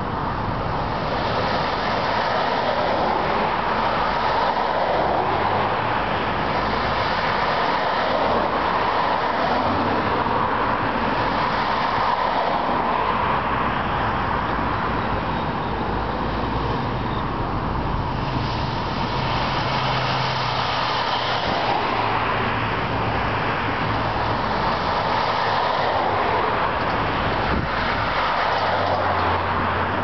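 Road traffic: cars and trucks driving past one after another, a continuous rush of tyre and engine noise, with a low engine hum that swells and fades several times.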